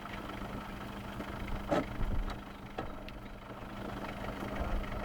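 Off-road vehicle engine idling steadily, with a few sharp knocks in the first half.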